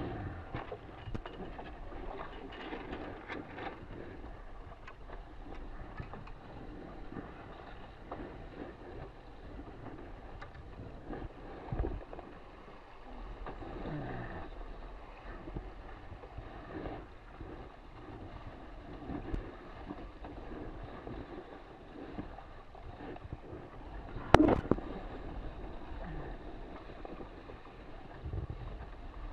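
Water rushing and splashing along the hull of an RS600FF sailing dinghy under way, with wind buffeting the microphone. A single sharp knock, louder than anything else, comes about three quarters of the way through, with a few smaller knocks elsewhere.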